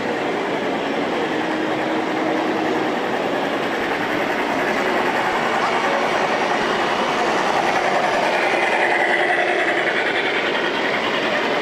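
G-scale model diesel passenger train running on the layout's track, its wheels rolling steadily and getting a little louder as it passes close near the end, over the murmur of a crowded exhibition hall.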